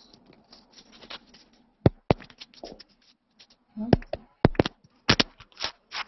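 Irregular knocks, clicks and scrapes of a headset microphone and earbud cable being handled and fitted during a video call, to fix the audio. The knocks come in a loose cluster from about two seconds in, several with a dull thud.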